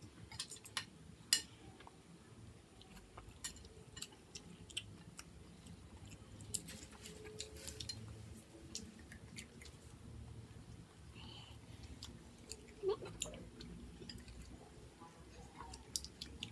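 Faint sounds of children eating fried chicken and rice with their hands: chewing and scattered small clicks and taps, over a low steady hum.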